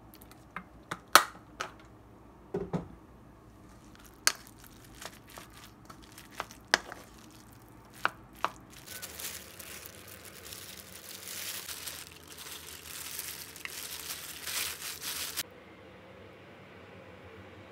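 Sharp clicks and taps of a plastic bottle and a rice paddle against a ceramic bowl, then about six seconds of continuous crackly scraping as a rice paddle mixes seasoned sushi rice in the bowl, cutting off suddenly.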